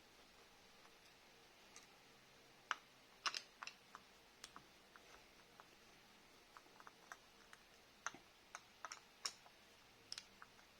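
Scattered light clicks and taps at irregular intervals, loudest about three seconds in and again a little after eight seconds, over near silence.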